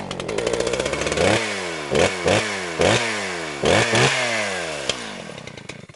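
An engine revved in about six sharp throttle blips, its pitch falling back between them, then dying away and cutting off.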